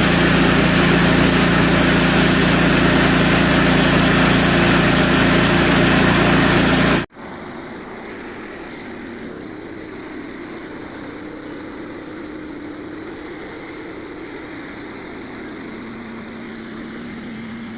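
Portable bandsaw sawmill's small gasoline engine running steadily under load while the band blade cuts white oak, loud with a dense hiss over the engine. About seven seconds in it cuts off sharply, and the mill is heard again much quieter, engine still running steadily.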